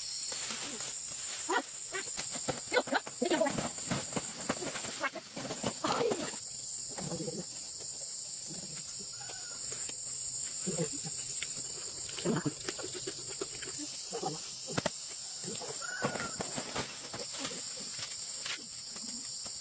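Steady high-pitched insect chorus, with scattered short voice-like calls and clicks over it.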